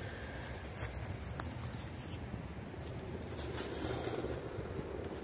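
Dry twigs and dead brush from flood debris rustling and crackling underfoot, with scattered light snaps over a low steady rumble.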